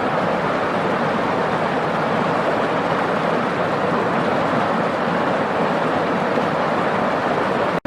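Steady rush of falling water from a waterfall, with a momentary dropout near the end.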